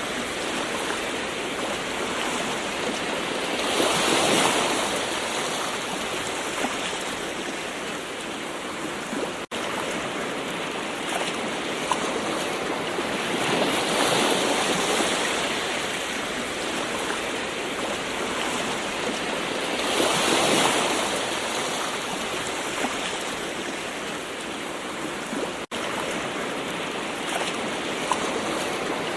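Gentle ocean waves washing in, a continuous rush of surf that swells louder every several seconds, with two very brief cuts in the sound.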